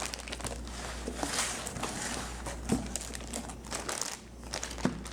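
Packaging wrap rustling and crinkling as it is handled and pulled open, with a few light taps and clicks.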